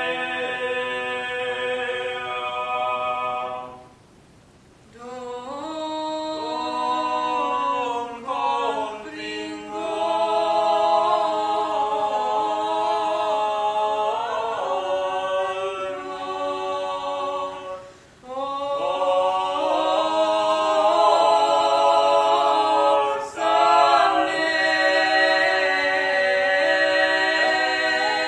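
Mixed-voice choir singing a cappella in several-part harmony, holding long chords. The singing breaks off briefly between phrases about four seconds in and again around eighteen seconds.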